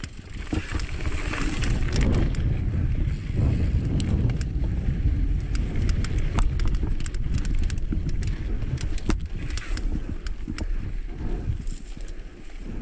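Mountain bike ridden along a dry dirt singletrack: a steady low rumble of tyres rolling over dirt and rock, with frequent sharp clicks and rattles from the bike jolting over the rough ground.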